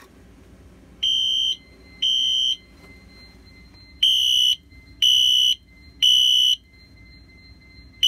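Wheelock HSR Exceeder electronic fire alarm horn sounding the temporal code-3 evacuation signal: loud half-second high pitched beeps about a second apart, two and then a pause, then three and a pause. A faint steady high tone runs underneath.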